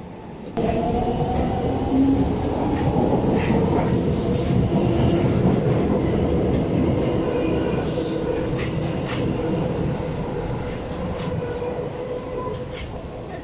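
SMRT metro train running past on a curved elevated track: a steady rumble with a steady hum, and short high wheel squeals from the curve now and then. It starts suddenly about half a second in and slowly fades toward the end.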